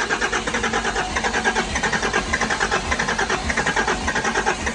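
A 12-valve Cummins inline-six diesel being cranked over by its starter on its first start-up, turning over in a fast, even rhythm without yet catching.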